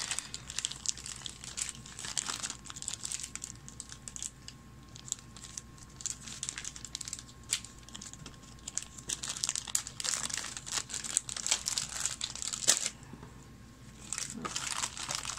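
Thin clear plastic bags crinkling and rustling in irregular crackles as small plastic miniatures are handled and unwrapped by hand, with one sharper crackle before a short quieter spell near the end.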